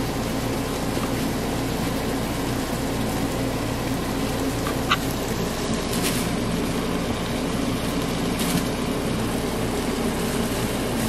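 Steady low mechanical hum of a running household machine, with a single sharp click about five seconds in.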